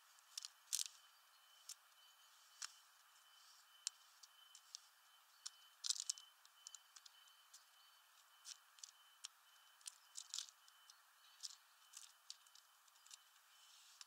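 Eurasian tree sparrows pecking and husking sunflower seeds on a feeder tray: irregular sharp clicks and taps, some in quick clusters, the loudest about a second in and again about six seconds in. A faint steady high tone runs underneath.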